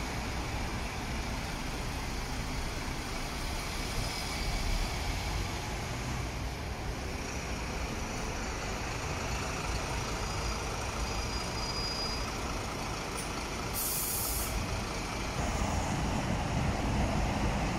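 City buses and road traffic running steadily, with a short hiss of a bus's air brakes about fourteen seconds in. The engine and road noise grows louder near the end.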